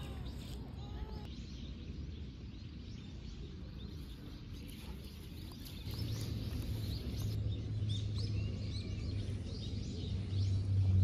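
Outdoor park ambience: many small birds chirping in short, repeated high calls over a low, steady rumble of wind and distant noise. About halfway through, a low steady hum comes in and grows louder.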